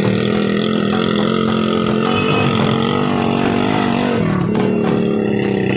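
Motorcycle engine running steadily while riding, its pitch dipping briefly about four seconds in and then picking up again.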